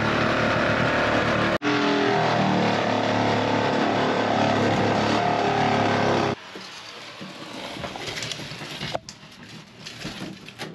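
Jigsaw cutting a window opening through the cargo trailer's metal wall: a loud, steady motor-and-blade run with a brief break about one and a half seconds in. It stops suddenly after about six seconds, leaving quieter handling noises and a sharp click near the end.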